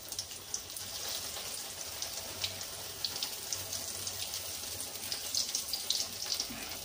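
Batter-coated potato bondas deep-frying in hot oil in a kadai: a steady sizzle dotted with small crackles and pops.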